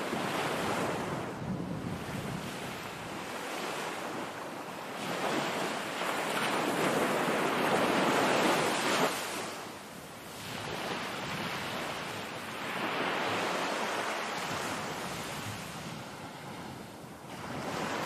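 Small waves washing onto a sandy shore of a calm sea, swelling and falling in slow surges. The biggest surge builds for several seconds and cuts off sharply about nine seconds in.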